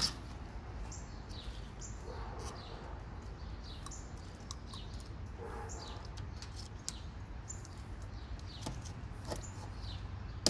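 Birds chirping in the background, short high notes falling in pitch and repeated every second or so, over a steady low rumble, with a few sharp clicks near the end.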